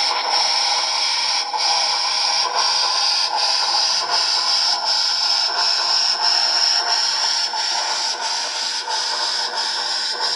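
Soundtraxx Tsunami2 sound decoder in an HO scale steam locomotive model playing steam sounds through its small speaker as the model runs: a steady hiss with chuffs about three every two seconds.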